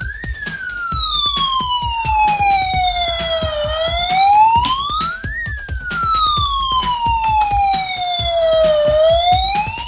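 Toy police car's electronic siren playing through its small speaker: a tone that climbs quickly, then slides slowly down, repeating about every five seconds. A constant patter of small clicks runs underneath.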